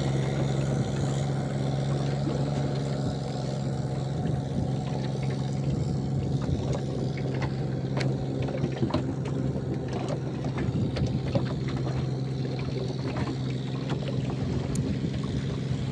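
Engine of a small wooden river boat running at a steady speed, with a low, even drone and water washing along the hull. A few light clicks and knocks come through at odd moments.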